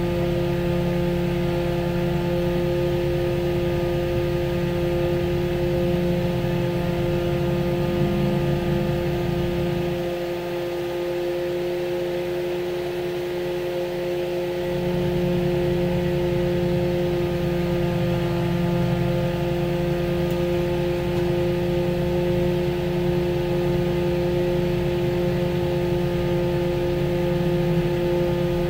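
A tractor-drawn aerial ladder truck running, heard from inside its rear tiller cab: a steady engine and road rumble with a constant two-tone hum over it. The rumble drops off from about ten seconds in and picks up again about five seconds later.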